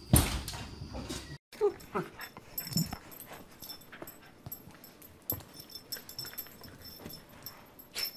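A loud thump as a dog runs into a glass door, fading over about a second. Then two dogs play-fighting, with short whimpering and yipping cries and small scuffling clicks.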